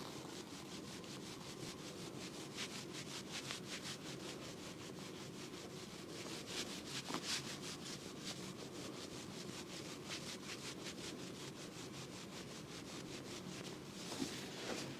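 Quick rhythmic rubbing strokes on a patient's body during a chiropractic session, about four a second, keeping an even pace throughout.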